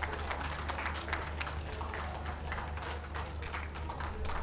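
Scattered applause from a small ringside crowd, individual claps heard separately, over a low steady rumble.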